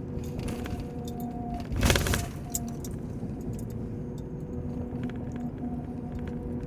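Steady low hum made of a few faint steady tones, with scattered light clicks and jingles throughout and one short, louder noise about two seconds in.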